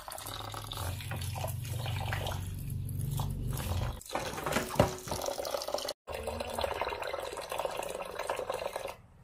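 A thin stream of water pouring into an aluminium pan of grain, splashing as the pan fills. There is a short knock near the middle, the loudest moment.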